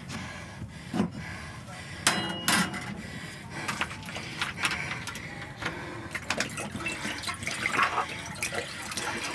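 Water being poured from a bottle into a pan, with a few sharp metal knocks of kitchenware about a second and two seconds in.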